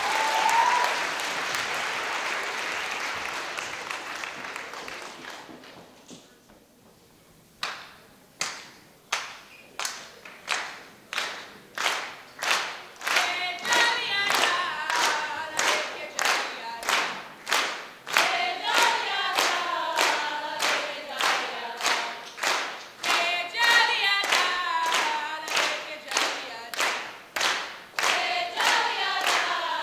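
Applause fading out into a few seconds of quiet, then a steady beat of hand claps starting about eight seconds in, close to two claps a second. From about thirteen seconds, voices sing unaccompanied over the claps.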